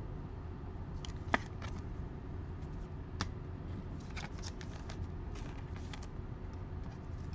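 Trading cards being handled and sorted by hand: scattered light clicks and soft rustles of card stock, the sharpest click about a second and a half in, over a steady low hum.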